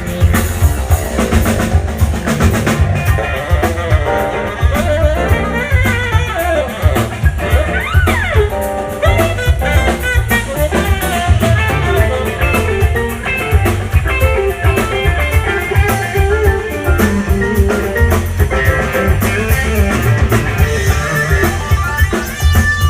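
A live band playing an instrumental passage in a jazz-blues groove: drum kit keeping a steady beat under a heavy bass line, with guitar and other melodic lines on top. Around eight seconds in, a few notes bend upward.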